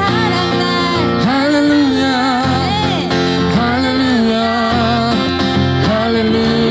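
Live worship music: acoustic guitar strumming steady chords with a sung melody over it.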